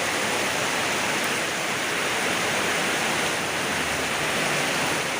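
Heavy rain pouring down as a steady, even rushing hiss.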